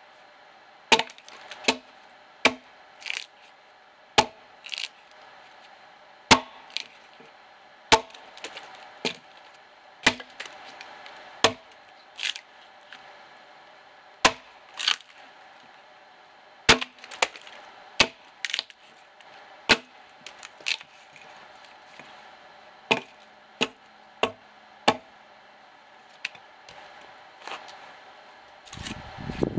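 Axe blows into a dead, dry ash log during hewing: a long run of sharp wooden cracks, roughly one to two strokes a second, often in pairs with short pauses between. Right at the end comes a louder, longer clatter.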